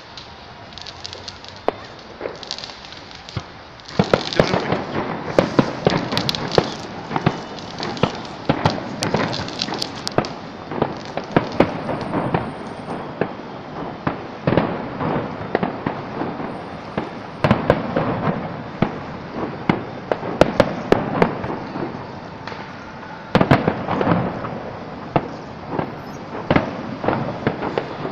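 Fireworks display: aerial shells bursting and crackling. A few scattered pops at first, then from about four seconds in a dense run of crackling with many sharp bangs.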